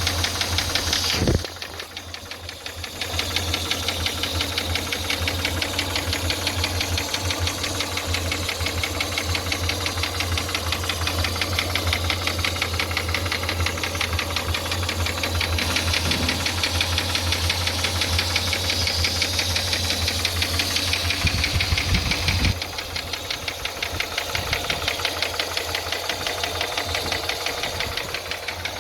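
Toyota 5VZ-FE 3.4-litre V6 running with a fast, steady, rhythmic knock, which the owner suspects is a worn connecting rod bearing (rod knock). The engine note dips briefly about a second in and drops somewhat after about 22 seconds.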